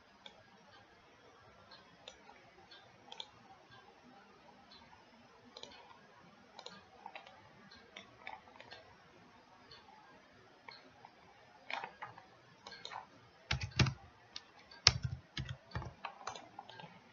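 Computer mouse and keyboard clicks, scattered and irregular. A denser, louder run of clicks with a few low thumps comes about three-quarters of the way through.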